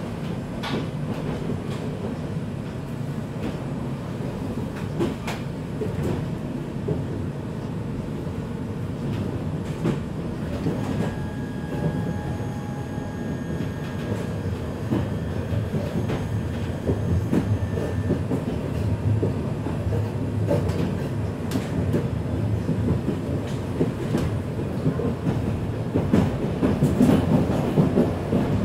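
Breda VLC tram heard from inside the passenger car while running along the track: a steady low rumble from the wheels and running gear, with scattered clicks and knocks. A faint high whine holds for several seconds midway, and the rumble grows a little louder near the end.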